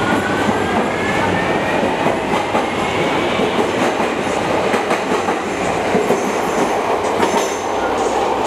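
CTA subway train pulling out of an underground station. Its motors give a rising whine over the first few seconds as it gathers speed, over a steady rumble, with wheels clacking over the rail joints.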